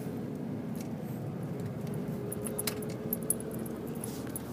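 Steady low hum of a Dodge Ram 2500 Cummins turbo diesel heard from inside its cab, with a few light jingling clicks about two and a half to three and a half seconds in.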